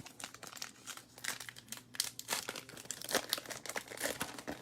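A baseball card pack's wrapper crinkling and tearing as it is pulled open by hand, a run of irregular crackles.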